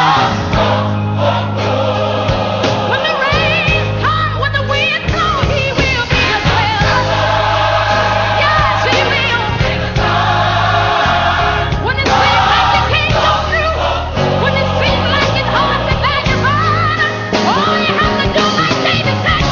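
Gospel music: a choir singing over a band with a steady bass line.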